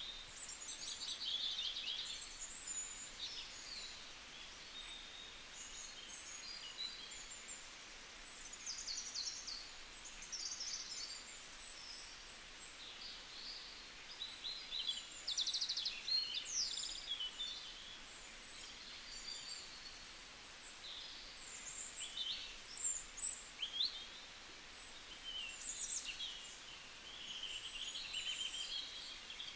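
Small birds chirping and twittering: many short, high calls and quick trills overlapping one another.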